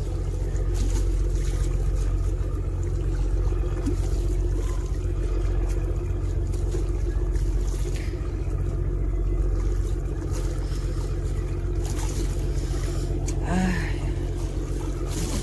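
A steady low engine drone with a constant hum, the kind made by a boat engine running in a harbour.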